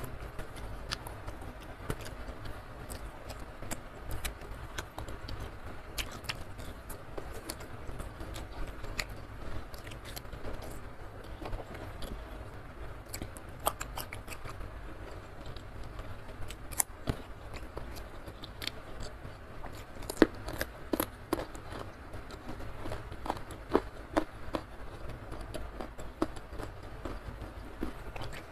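Close-miked eating sounds: chewing and biting into rice, fried salted fish and young jengkol eaten by hand, heard as many sharp, irregular clicks and crunches over a steady low hum, the loudest bites about two-thirds of the way in.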